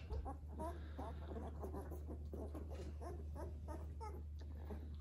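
Two-week-old Labrador puppies whimpering and crying, many short squeaky cries overlapping one another as one pup sets off the others.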